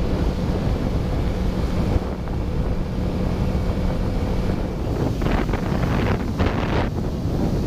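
Wind rushing over the microphone of a boat under way, with the steady hum of the boat's motor beneath it. About five seconds in the motor hum drops away and harder gusts of wind take over.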